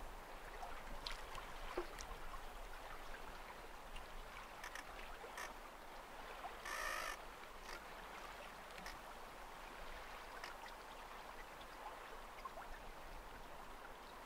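Faint lapping and splashing of choppy tidal water, with scattered small splashes and one short, louder splash about seven seconds in.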